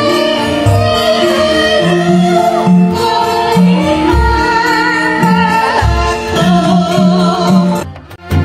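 Music with singing over a pulsing bass line; it breaks off for a moment near the end and starts again.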